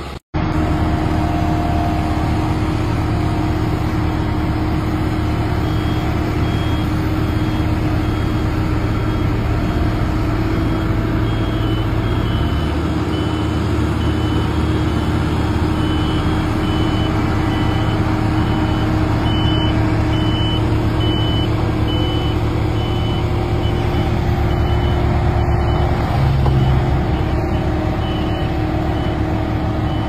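Diesel engines of Bomag single-drum road rollers running steadily. A reversing alarm beeps at a regular pace from several seconds in until near the end.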